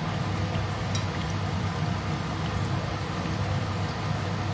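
Taro chunks shallow-frying in oil in a stainless steel pan, a steady sizzle over a low hum, with a light tick of chopsticks against the pan about a second in.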